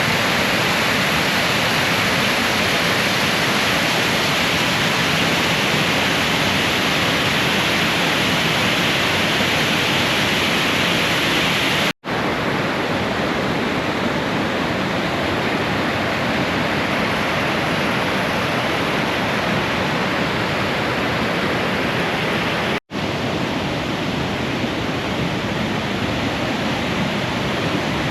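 Bond Falls, a waterfall, rushing with a steady, loud roar of falling water heard up close. The roar breaks off for a split second twice, about twelve and twenty-three seconds in.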